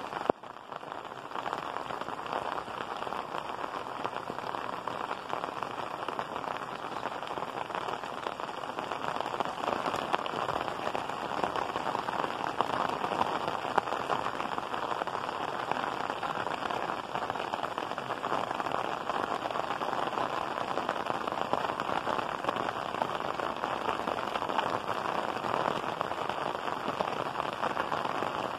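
Heavy rain falling steadily on clay roof tiles, an even, unbroken hiss.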